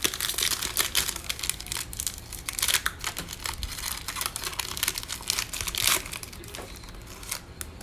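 Trading card pack wrapper crinkling and tearing as it is opened, a dense crackle for about six seconds that thins out near the end.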